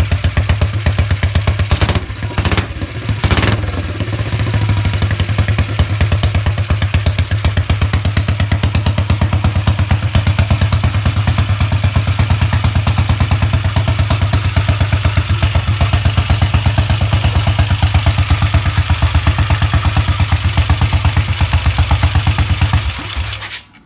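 Freshly restored BSA Gold Star 500's single-cylinder four-stroke engine running on its first start, an even beat of exhaust pulses with a brief unevenness about two to three seconds in. The engine cuts off near the end.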